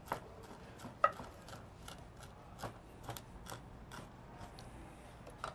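Kitchen knives chopping fresh herbs and tomato on cutting boards: light, irregular taps of the blades on the boards, a few louder strikes among them.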